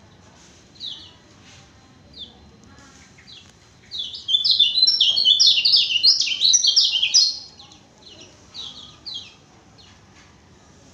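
A songbird singing, an active 'gacor' bird: scattered short, high, falling chirps, then about four seconds in a loud, dense run of rapid notes lasting some three seconds, then a few more single chirps.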